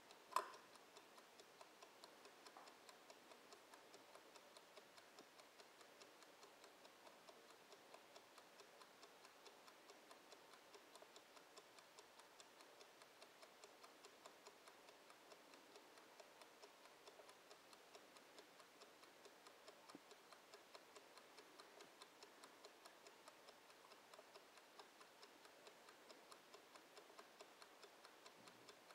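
Mechanical wind-up kitchen timer ticking faintly and steadily as it counts down. A single sharper click comes about half a second in.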